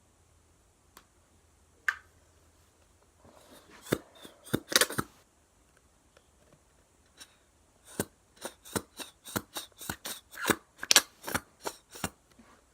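Homemade slime being squeezed and pressed, its trapped air popping in sharp clicks and snaps: a few lone clicks, a burst of pops about four seconds in, then a quick run of about three pops a second from about eight seconds in.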